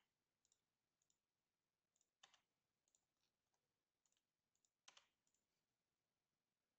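Near silence with faint, scattered computer mouse clicks, the two loudest about two and five seconds in.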